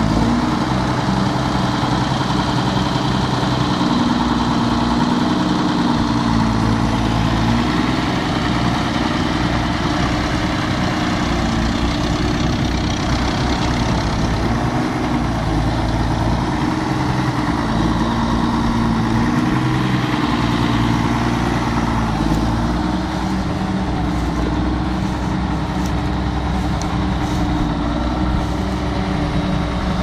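Schlüter Super 1500 TVL tractor's diesel engine running steadily under load as it pulls a plough through stubble, its note wavering slightly in pitch.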